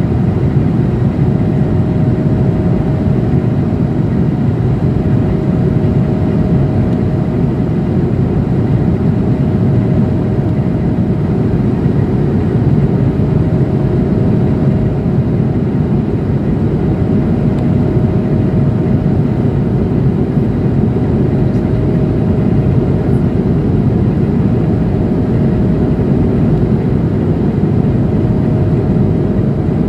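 Steady cabin noise of an Airbus A220-100 in flight: its Pratt & Whitney PW1500G geared turbofan engines and the rush of air past the fuselage, heard from a window seat over the wing, with a steady hum running under it.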